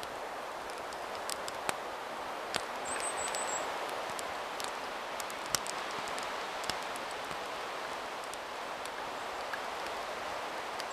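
Small wood fire burning in a camp stove: a steady hiss with scattered sharp crackles, and a brief high chirp about three seconds in.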